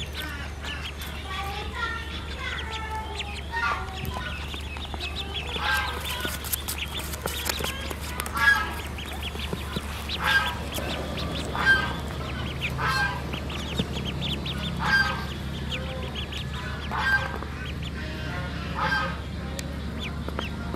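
Mother duck and her ducklings calling: chirping peeps at first, then short, loud calls repeating every one to two seconds, over a steady low hum.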